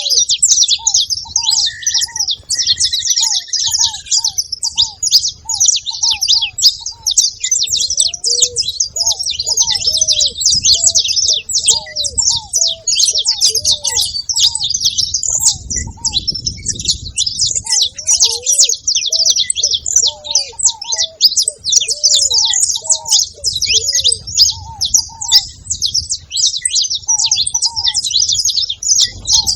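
Saffron finches chirping and singing, many high notes overlapping without a break, while a ruddy ground dove coos underneath in a steady series of short low notes, about two a second. A short falling trill comes in a couple of seconds in.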